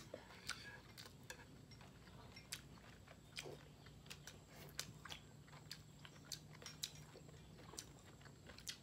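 Faint close-up chewing and biting of grilled beef rolls filled with bell pepper and enoki mushrooms, heard as scattered small clicks and crunches.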